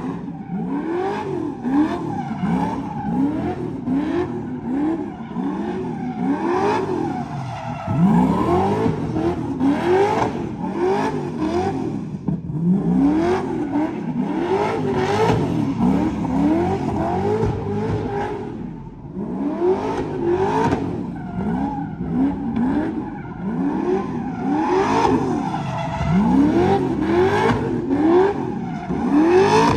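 Corvette V8 revved hard over and over during donuts, its pitch climbing and dropping about once a second, with the rear tires spinning against the pavement.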